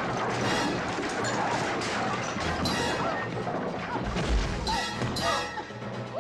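A bar-room brawl: repeated crashes, smashes and blows, with a heavy thud about four seconds in and short yells, over background music.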